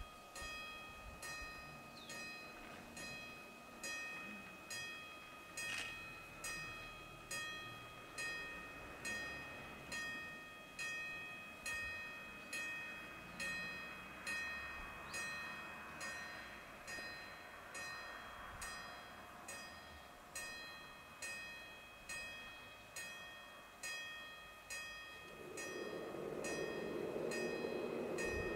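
Level-crossing warning bell striking about once a second, each strike ringing briefly, as the crossing signal shows red and the barrier lowers. A rising rumble builds near the end.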